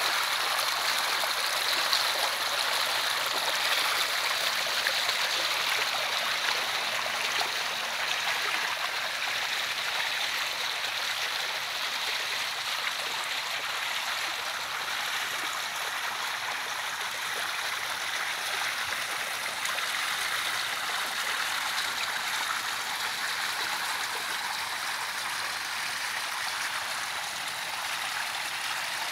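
Swimming pool water splashing and trickling steadily, a little louder in the first several seconds.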